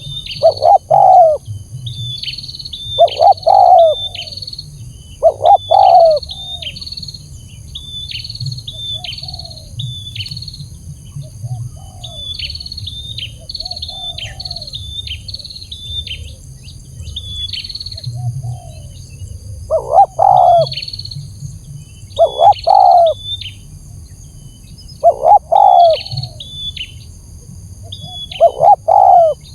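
Spotted dove (tekukur) cooing in repeated two-note phrases, loud near the start and again in the last third with fainter coos between. A smaller bird chirps in quick high runs throughout, over a steady high-pitched ringing.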